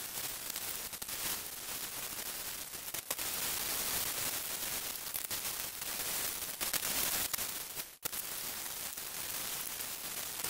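Hand wet-sanding of a bare aluminium engine head cover with 800-grit waterproof sandpaper, played back at high speed so the scrubbing blurs into a steady high hiss. It drops out briefly about two-thirds of the way through.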